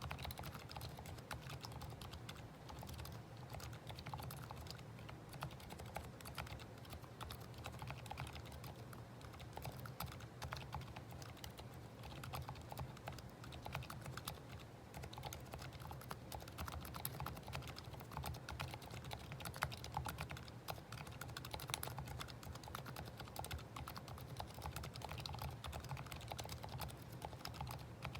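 Steady, continuous typing on a Planck rev4 40% ortholinear keyboard with lubed Gateron Silent Brown tactile silent switches and SA-profile keycaps, the keystrokes following each other densely without pause.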